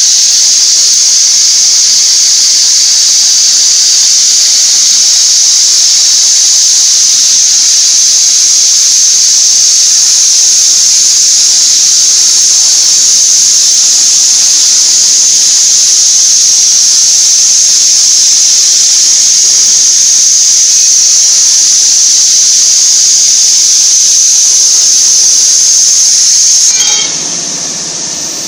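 CNC gantry plasma torch cutting steel plate: a loud, steady, high hiss. It cuts off sharply about a second and a half before the end as the cut finishes, leaving a quieter background noise.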